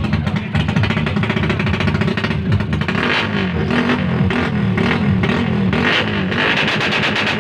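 Rusi TC 150 motorcycle engine running loudly in a sound check, with an uneven, throbbing note.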